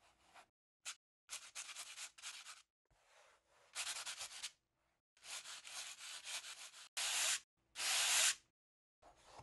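Sandpaper rubbed by hand over a panel coated with dried light modeling paste, lightly sanding down a few rough spots. It comes in several short spells of back-and-forth strokes with brief pauses, the strokes near the end being the loudest.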